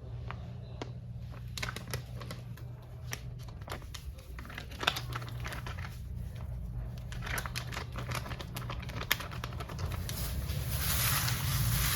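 Irregular crinkling and light clicks of kitchen handling, over a low steady hum, with a hiss building up over the last two seconds.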